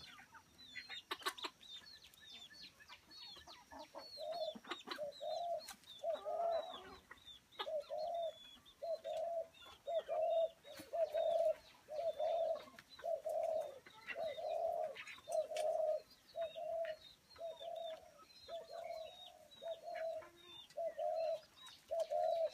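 Birds calling. A low cooing call repeats steadily, a little more than once a second, from about four seconds in, over thin, high, falling chirps.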